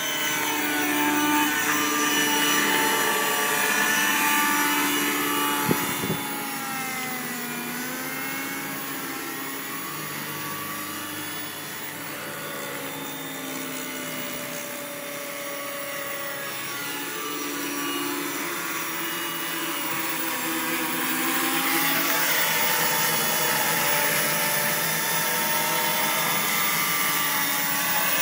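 Quadcopter's four Peak 2212 brushless motors and propellers running in a low hover under position hold: several whining tones drift up and down in pitch as the flight controller keeps correcting. There is one brief click about six seconds in, and the sound grows louder over the last six seconds.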